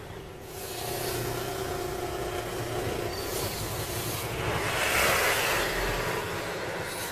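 Road traffic heard from a moving vehicle: a steady engine hum and road noise, with a light truck passing close and loudest about five seconds in.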